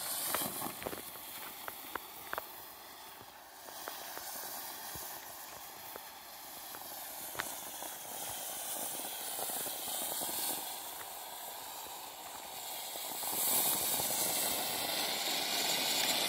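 Cheap TNT 'Game Mode' ground fountain firework hissing steadily as it burns and sprays sparks, with scattered crackling pops in the first few seconds. The hiss grows louder about thirteen seconds in; overall it is pretty quiet for a firework.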